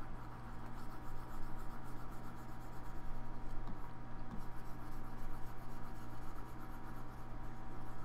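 Faint rubbing and scratching of a pointing device moved across a desk surface, over a steady electrical hum and microphone hiss.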